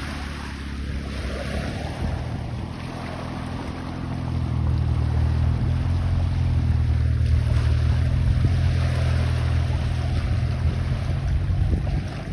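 Wind and water at the Dniester estuary, with wind rumbling on the microphone. A low, steady hum grows louder about four seconds in and eases off near the end.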